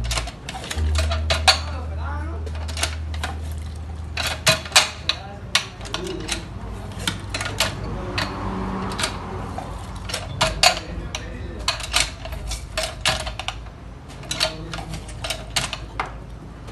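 Lever-action citrus press being worked over and over, squeezing citrus halves into a metal cup: repeated sharp metal clacks, often in quick clusters of several.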